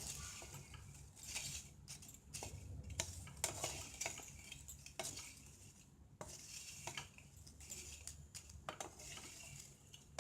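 A utensil stirring and scraping bread crusts around a pan with irregular clinks and scrapes. The crusts are being dry-toasted on a low flame until crunchy, to make breadcrumbs.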